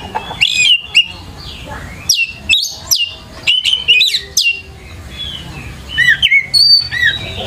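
Oriental magpie-robin (kacer) singing in full, active song: rapid phrases of sharp whistled notes and chirps that sweep quickly up and down in pitch, coming in bursts with short pauses and a brief lull about two-thirds of the way through.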